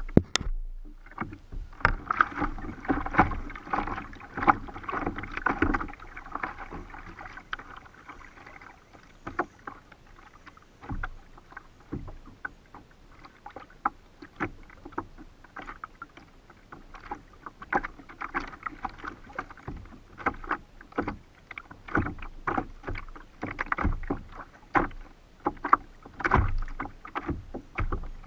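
Water splashing and slapping against a kayak's hull as it moves through the sea, in many short irregular hits.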